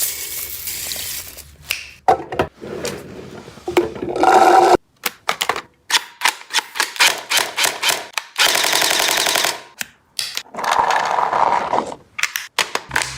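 Gel blaster firing in rapid bursts: sharp shots several a second, in runs with short pauses between.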